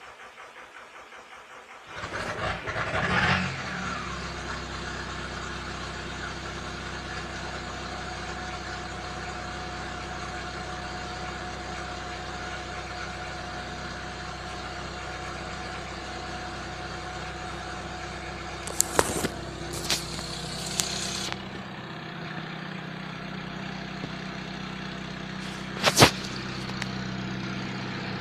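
Volkswagen Jetta's 1.9 TDI four-cylinder diesel on a cold start: the starter cranks for about two seconds, the engine catches with a brief flare of revs, then settles into a steady idle. A few sharp knocks sound over the idle later on.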